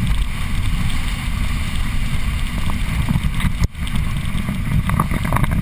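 Rushing wind buffeting a camera microphone mounted on a towed inflatable tube, with water hissing under the tube as it is pulled at speed. The sound cuts out for an instant about three and a half seconds in.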